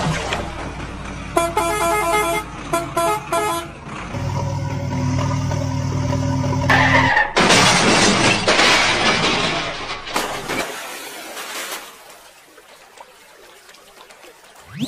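Vehicle horn sound effects: a run of rapid short toots, then one long deep truck horn blast. After it comes a few seconds of loud rushing noise.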